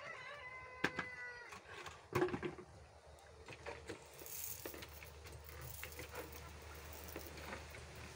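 A single drawn-out animal call, held for about a second and a half and falling slightly at its end, followed by a few sharp knocks and some rustling.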